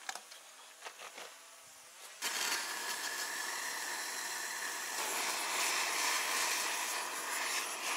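The homemade steam motorcycle's kerosene burner hisses steadily as it is relit after the wind blew it out. Faint clicks come first, then the hiss starts suddenly about two seconds in.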